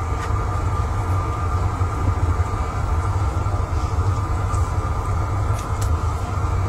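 Propane burner under a kettle-corn kettle running with a steady low rumble, with a few light clicks near the end.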